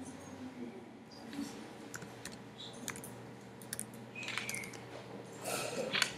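Computer keyboard typing: scattered key presses and clicks, with a louder short noise near the end.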